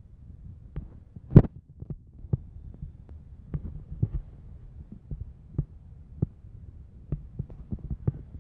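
Garden-railway model Climax locomotive running toward the camera along the track: irregular clicks and knocks over a low rumble, with one sharper knock about a second and a half in.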